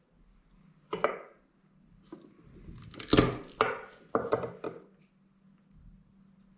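Kitchenware being handled: a run of knocks and clatters, about seven in all, the loudest about three seconds in.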